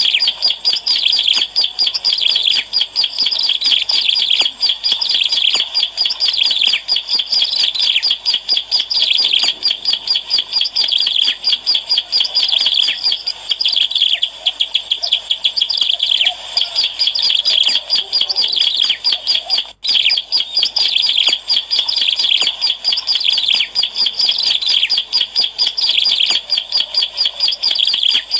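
Ciblek alang-alang, a prinia, singing a lure song: a fast, unbroken stream of high chirps and twitters, with a momentary break about two-thirds of the way through.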